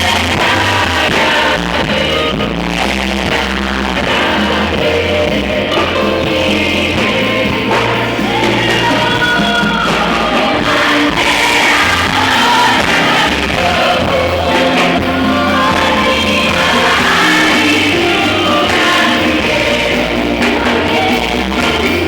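Rock-style music with singing and a steady bass line.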